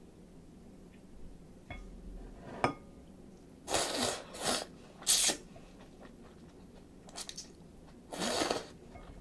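A person slurping chilled ramen noodles: a sharp click of the ladle against the bowl, then three quick slurps close together around the middle and one more near the end.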